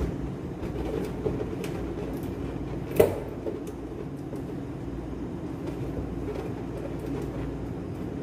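Steady low hum in the room, with small clicks and rubs as a red latex balloon and its ribbon are handled and tied, and one sharp click about three seconds in.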